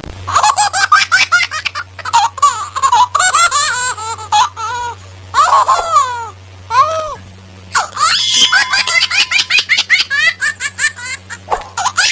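High-pitched child laughter, giggling in many quick bursts.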